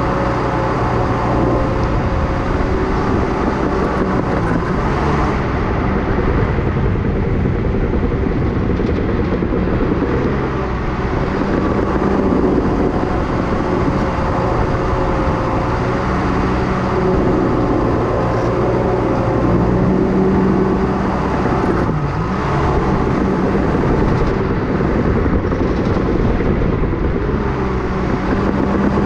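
Cat D5K bulldozer's four-cylinder Cat C4.4 diesel engine running steadily under load as the blade pushes dirt, its note shifting slightly a few times as the load changes.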